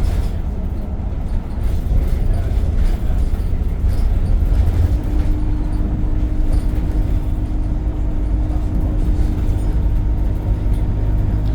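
ADL Enviro 200 bus heard from inside: a steady low engine rumble, joined about five seconds in by a steady hum that stops near the end, the air compressor running and setting the wall vibrating.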